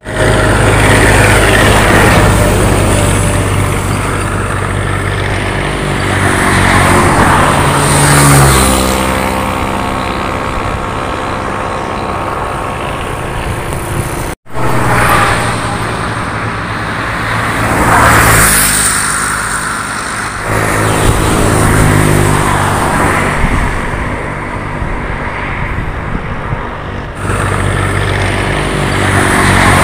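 Road vehicle engine running under way, its pitch climbing and then dropping back several times as it changes gear, over steady road and wind noise. The sound cuts out for a moment about halfway through.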